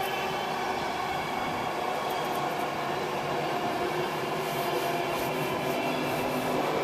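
A train passing, a steady noise with faint steady tones in it, growing slightly louder near the end.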